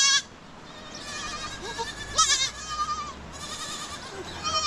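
Sheep and goats bleating: a string of quavering calls, some overlapping, the loudest about two seconds in.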